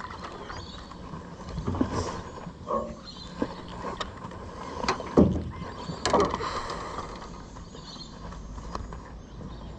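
A series of irregular knocks and thumps from fishing gear and hands on a small boat's hull and deck, the loudest a little after five seconds in.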